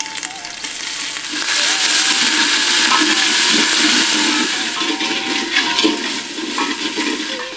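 Ginger-garlic paste sizzling as it hits hot oil and golden fried onions in a metal pot, stirred with a ladle. The sizzle swells about a second and a half in and eases off near the end.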